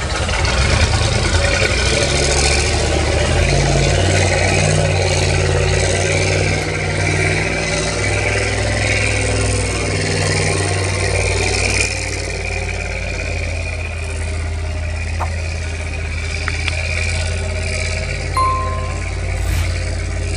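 Heavy diesel engines of an excavator and dump trucks running steadily, the sound easing a little about twelve seconds in. A short high tone sounds near the end.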